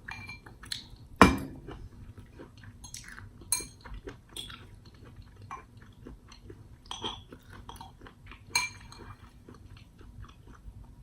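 A spoon clinking and scraping against a bowl while scooping up corn, with chewing in between. A sharp clink about a second in is the loudest.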